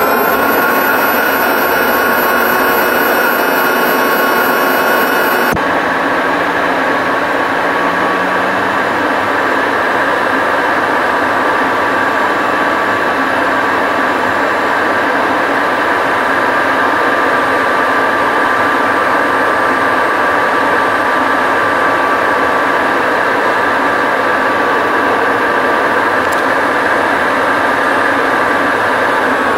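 CFM56 turbofan engines of an Airbus A320 heard from inside the cabin in flight: a steady drone and rushing noise with a constant high whine, in fast-forwarded playback.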